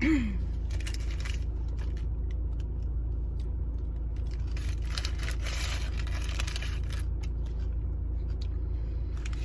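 Steady low rumble inside a car cabin, with scattered small clicks and a stretch of rustling about five to six and a half seconds in.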